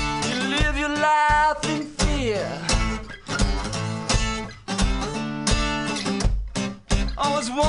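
Acoustic guitar strummed in a steady rhythm. A voice sings a wavering, wordless line over it in the first couple of seconds and again near the end.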